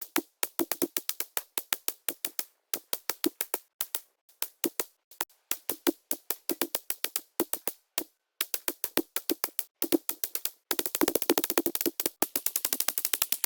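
Ruger 10/22 .22 LR semi-automatic rifle firing rapidly: many sharp cracks in quick strings, crowding into a dense, very fast run of shots over the last few seconds.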